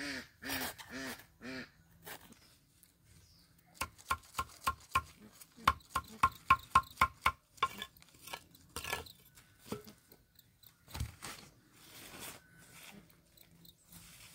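Ducks quacking in a quick run of short calls, about four a second, for the first second and a half. A few seconds later comes a run of about a dozen sharp knocks, roughly four a second, followed by scattered softer rustling noises.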